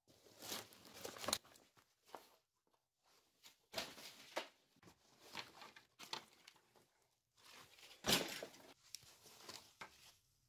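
Camouflage clothing and gear rummaged through and pulled off a wardrobe shelf: fabric rustling in bursts, with a few sharp knocks.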